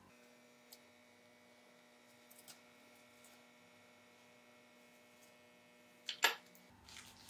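Low, steady electrical hum over quiet room tone, with a few faint light taps and one sharp click about six seconds in.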